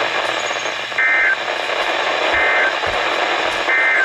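Three short warbling data bursts of an EAS/NOAA Weather Radio SAME end-of-message code, about a second apart, over steady radio static. The bursts mark the end of the severe thunderstorm warning broadcast.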